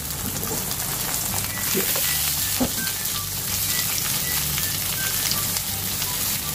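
Atsuage (thick deep-fried tofu) sizzling in a little oil in a frying pan: a steady, even crackle as the surfaces brown and crisp.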